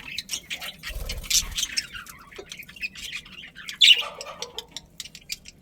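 Budgerigars chattering: a rapid jumble of short, high chirps and squawks from several birds, with one louder squawk toward the end.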